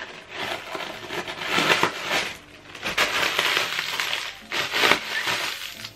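Clear plastic packaging crinkling and rustling as it is handled, in several loud, uneven bursts.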